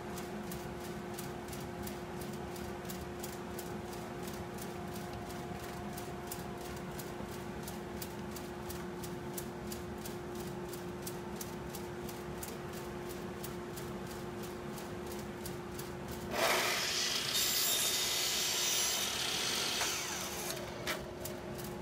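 A steady low hum runs throughout. About sixteen seconds in, a Makita miter saw cuts through a hardwood acacia chair part for about four seconds. The cut is the loudest sound, and it tapers off at the end.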